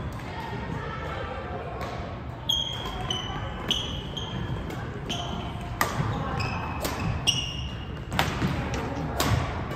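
Badminton rally: sharp racket strikes on the shuttlecock every second or so, starting about two and a half seconds in, mixed with short high squeaks of court shoes on the sports-hall floor.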